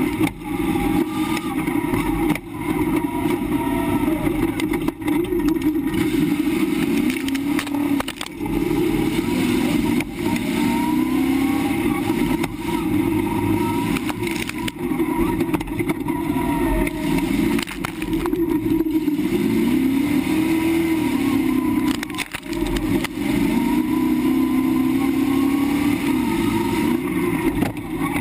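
Tough truck's engine running hard, heard from under the chassis by the exhaust, its pitch rising and falling over and over as the throttle is worked around a rough dirt course. A few sharp knocks come from the truck banging over the bumps.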